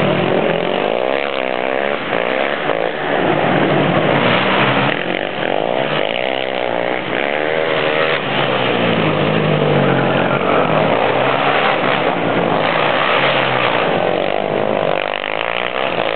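ATV engines running hard and revving, the pitch rising and falling again and again as they accelerate and shift. At times more than one engine is heard at once.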